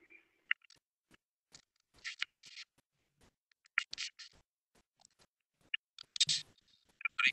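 Faint scratchy rustling in short, irregular bursts, with a few sharp clicks in between.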